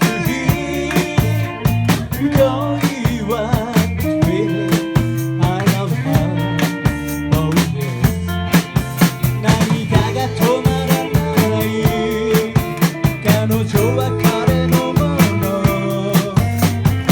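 Rock and roll band playing live, with a drum kit keeping a steady beat under bass and electric guitar.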